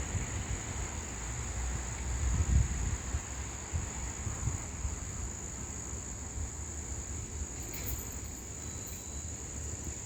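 Insects trilling in one continuous, steady, high-pitched drone, with a low uneven rumble underneath.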